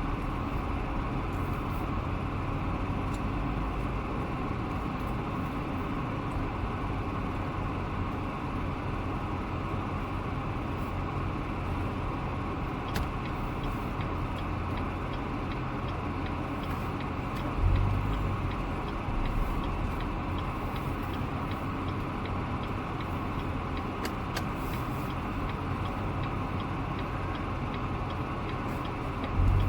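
C7 Corvette being driven: steady road and engine noise, with a brief low thump a little over halfway through.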